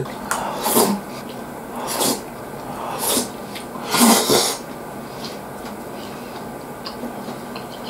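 A man slurping spoonfuls of mapo tofu: four sharp, airy slurps about a second apart, then quieter.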